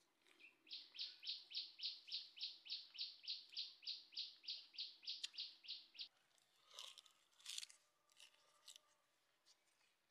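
A bird calling a fast run of about twenty identical falling notes, roughly four a second, for about five seconds. After it stops come two short crackly rustles.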